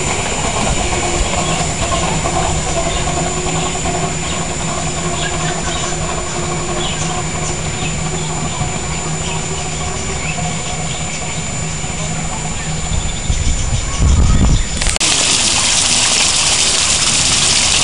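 Miniature steam locomotive and its passenger train running away along the track, a steady low rumble with a faint ringing tone over it. A short louder rumble comes about fourteen seconds in. Then, about fifteen seconds in, the sound changes abruptly to the even splashing hiss of a small waterfall over rocks.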